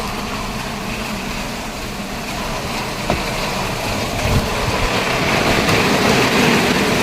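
Motor vehicle engine and road noise, steady, growing a little louder over the last few seconds.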